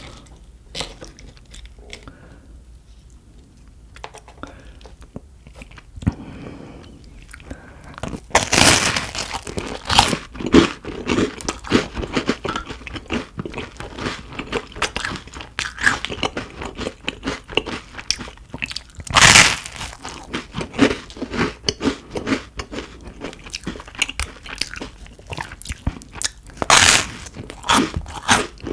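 Close-miked eating sounds: crunchy bites and chewing. The first several seconds are soft and sparse; after that the crunching becomes dense, with a few loud crunches standing out.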